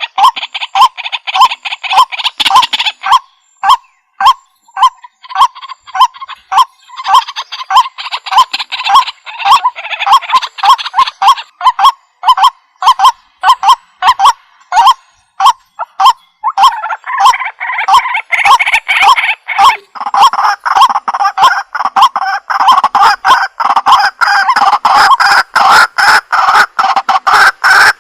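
White-breasted waterhen calling: loud call notes repeated about two a second, which crowd into a dense, nearly unbroken run of overlapping calls from about two-thirds of the way in.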